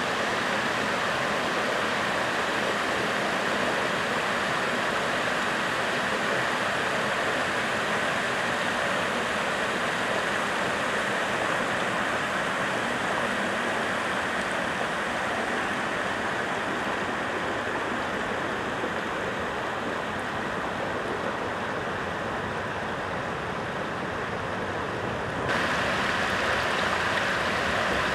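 Shallow river water rushing steadily as it spills over a low concrete weir and runs over a pebble bed. Near the end the sound turns slightly louder and brighter, close to water rippling over stones in the shallows.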